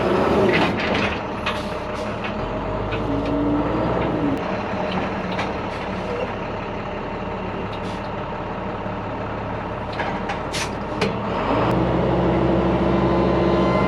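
Heavy engine of a bale wagon running, with clanks and knocks from the machine, revving up about eleven seconds in.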